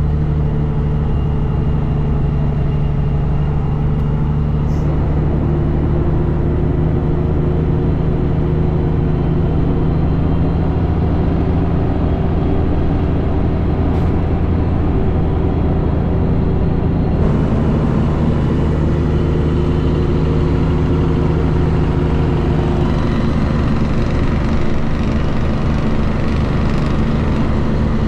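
Loaded ProStar tractor-trailer's diesel engine pulling steadily under load on an uphill grade. The engine note holds an even pitch throughout, and grows brighter about two-thirds of the way through.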